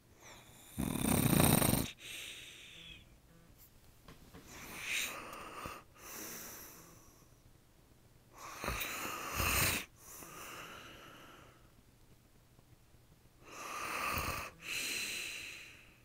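A man snoring in his sleep with his mouth open: three loud snores of about a second each, with quieter breaths between them.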